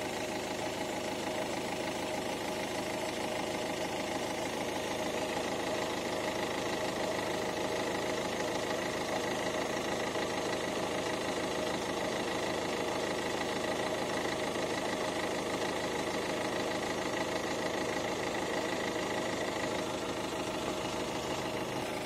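Ford C-Max 1.6 TDCi four-cylinder diesel engine idling steadily, fully warmed up, heard close up in the open engine bay.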